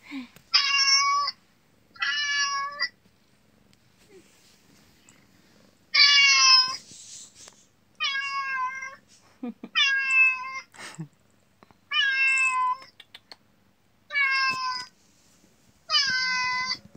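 Recorded kitten meows played through a tablet's small speaker: eight high, similar-shaped meows, each under a second long and about two seconds apart, with a longer pause after the second.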